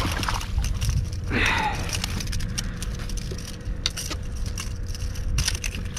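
Wind rumbling on the microphone, with water splashing as a landing net holding a large speckled trout is swung out of the water, a short splash about a second and a half in, and light clicks and knocks of the net and rod against the kayak.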